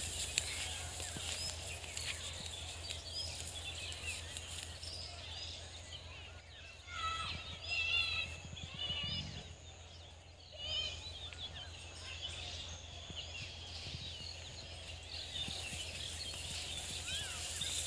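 Outdoor rural ambience full of small birds chirping and trilling, with a louder run of repeated bird trills about seven to nine seconds in. A steady low hum runs underneath.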